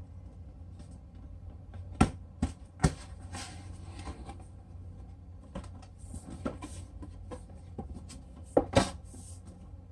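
Cardboard box being opened by hand: card rustling and scraping as the outer sleeve comes off and the lid is lifted, with sharp knocks of card, three about two to three seconds in and two close together near the end.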